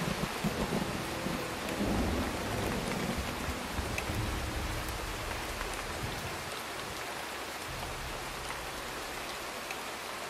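Steady rain falling, with low rumbles of thunder that are loudest about two seconds in.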